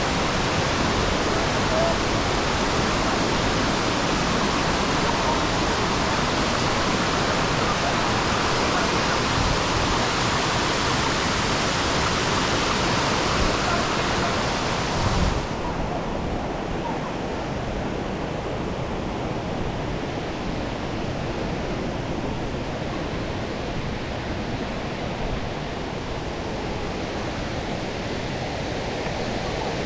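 Rushing water of a waterfall, a steady dense noise. About halfway through it abruptly turns duller and a little quieter.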